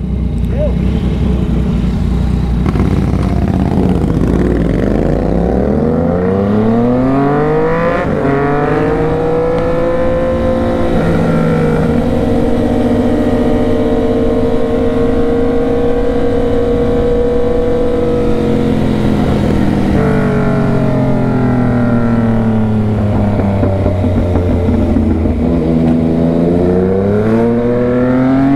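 Yamaha MT-09's inline-three engine pulling the bike along. After a low start, its pitch climbs steadily for several seconds under acceleration, then holds level at a steady cruise. It then falls as the rider eases off and begins rising again near the end.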